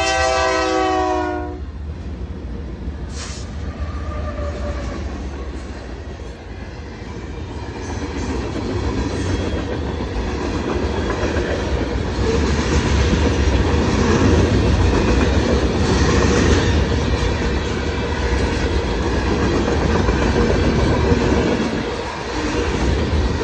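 Freight train led by BNSF 5027, a GE C44-9W diesel locomotive, with the end of a horn blast that stops about a second and a half in. Then the train rolls through the crossing: a steady rumble and the clickety-clack of freight car wheels on the rail, growing louder as the cars pass.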